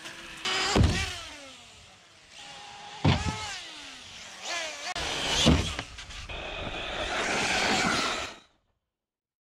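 Electric motor of an Arrma RC buggy whining in several short clips cut together. Each starts loud and is followed by a whine that falls in pitch as the car leaves the ground, with a few sharp knocks. The sound cuts off suddenly about eight and a half seconds in.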